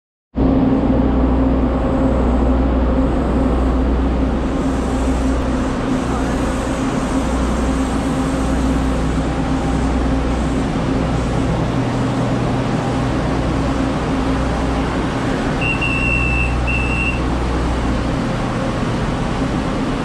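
Diesel railcar idling at the platform, a steady low engine rumble and hum. Two short high beeps sound about three-quarters of the way through.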